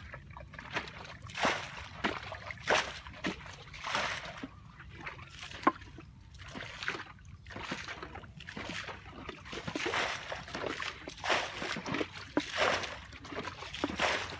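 Shallow muddy pond water sloshing and splashing in repeated irregular scoops, as it is bailed out with a plastic bucket and by hand; the splashes thin out for a few seconds in the middle.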